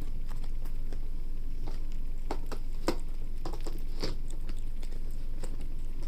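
Chewing or licking: irregular soft clicks and smacks, a few each second, over a steady low hum.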